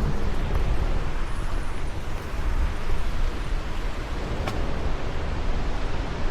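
Steady rushing of a rain-swollen waterfall, with a single short click about four and a half seconds in.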